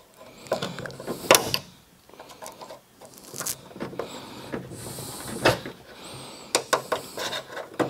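Scattered clicks, knocks and rubbing as the gas strut of a Porsche Cayman's front hood is pried off its mount by hand.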